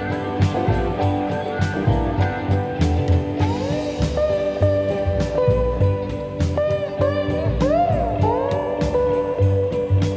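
Background music: a blues guitar track over a steady drum beat, with bending, sliding guitar notes.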